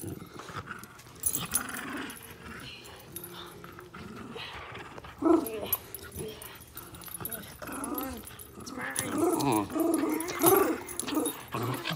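West Highland terriers play-fighting over a rope toy, growling and whining. The calls come thicker and louder in the second half.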